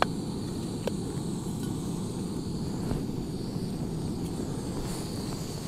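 Camping stove burner running steadily, a low even roar as it heats water to the boil, with a couple of light clicks near the start and about a second in.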